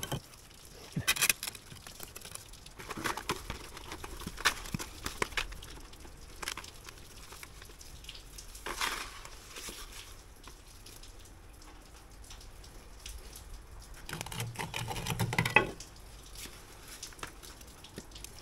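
Intermittent scrapes and light taps of a steel pointing trowel working wet mortar in a hole in brickwork, with a longer scrape about halfway and a louder cluster of scraping and knocking near the end.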